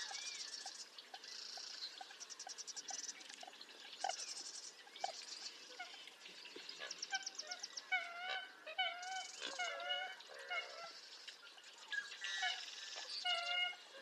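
American coots calling: short low clucks repeated two or three times a second, then from about eight seconds in a series of nasal, wavering honk-like calls. High, rapid trills recur throughout.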